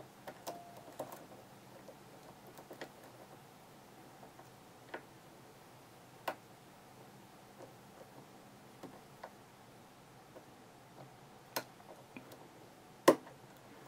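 Scattered small metallic clicks of a hook pick lifting and setting pins in a Sargent pin-tumbler lock held under tension, about ten irregularly spaced ticks with the loudest near the end, as the pins are reset into a full set.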